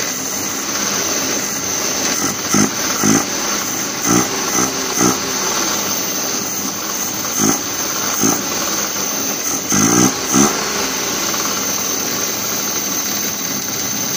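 Suzuki F6A three-cylinder engine being cranked on the starter without catching, with several short louder bursts through the middle. It is a no-start after a carburetor rebuild.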